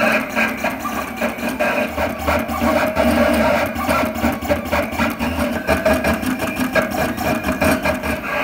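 Vinyl cutter working as a pen plotter, its motors whirring and buzzing in short, quick moves as the pen carriage and paper rollers shift, with a dense run of small clicks. A low hum joins about two seconds in.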